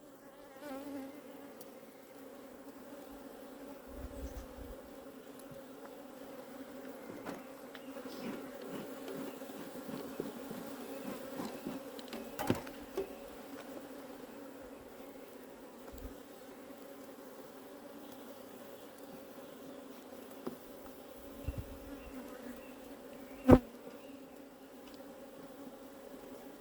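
Honeybees buzzing around an opened hive: a steady hum with a second, higher band above it. A few soft handling knocks, a click about midway and one sharp, loud click near the end.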